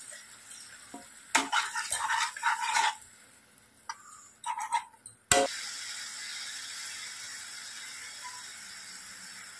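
Spatula scraping and stirring a tomato-onion masala in a non-stick pan, in strokes about one to three seconds in and again near five seconds. After a sharp click a little past five seconds, the wet masala sizzles steadily.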